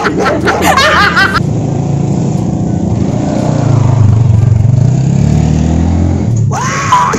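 A vehicle engine running, rising and then falling in pitch, loudest around the middle. A short gliding sound comes in at the start and again near the end.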